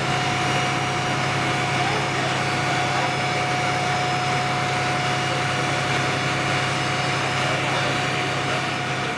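Parked fire engine's engine running steadily to drive its water pump while hose lines are connected: a constant low hum with a steady whine over it.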